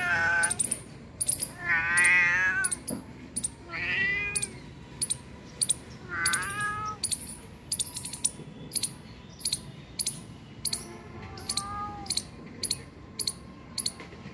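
Ginger cat meowing about five times, drawn-out wavering meows, the last one fainter. A sharp high tick repeats about twice a second behind the meows.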